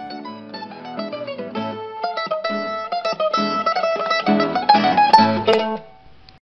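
Instrumental background music of quick plucked-string notes, growing louder before it stops about six seconds in and fades out.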